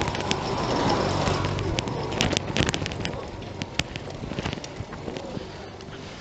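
A small auto-rickshaw engine passing close by, loudest in the first couple of seconds and then fading, over scattered clicks and crackles from a bicycle rolling on a rough dirt road.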